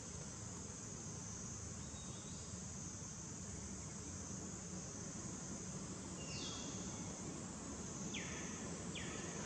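Steady high-pitched drone of insects. A few short falling whistle-like calls come about 2, 6, 8 and 9 seconds in.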